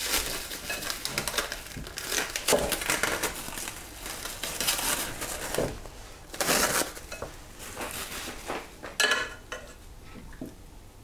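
Plastic cling film crinkling and rustling as it is peeled off a bowl, then metal kitchen tongs clinking as they are picked up and put into the bowl, with a couple of sharper clatters in the second half.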